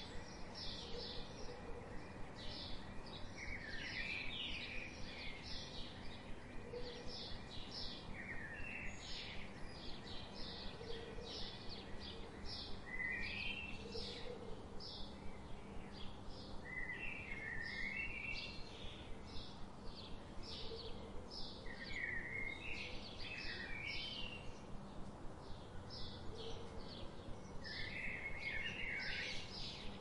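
Small birds chirping: a steady run of short, high chirps several times a second, with lower, falling twittering phrases every few seconds.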